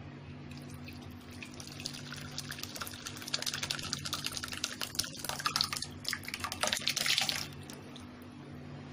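Curdled milk, chhena curds in whey, poured from an aluminium pot through a cotton straining cloth into a vessel below, the whey splashing and trickling. The pour grows heavier about three seconds in and stops near the end.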